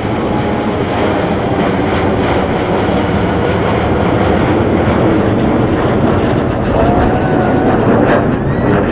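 Jet engines of a Boeing 747-8 Intercontinental, four GEnx turbofans, giving a loud, steady roar at high power.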